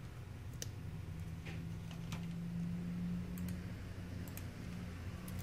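Scattered faint clicks and taps of a smartphone's circuit board being pressed and fitted into its plastic and metal frame, over a steady low hum.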